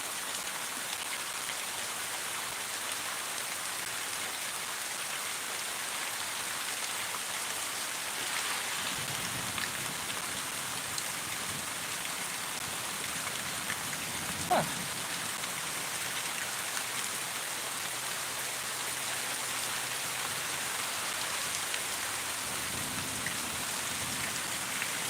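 Steady rain falling. Low rumbles of distant thunder come and go from about a third of the way in, and a short sharp sound pops out about halfway through.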